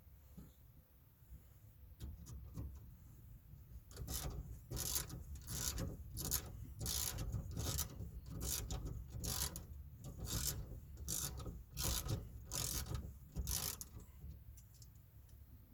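Hand ratchet wrench being worked back and forth to drive in a bolt, a rapid series of clicking rasps about two a second for about ten seconds, starting about four seconds in.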